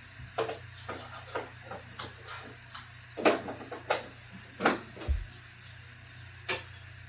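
Irregular small plastic clicks and knocks from handling a USB audio adapter and plugging it into a TV's USB port, with one dull low thump a little after halfway, over a steady low hum.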